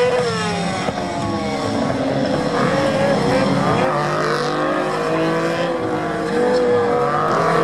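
A stunt motorcycle's engine and a sports car's engine revving together, their pitch rising and falling repeatedly as both spin their rear wheels in circles.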